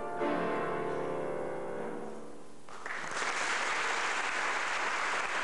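The closing chord of a choir piece with piano is held and dies away. About halfway through, an audience bursts into applause.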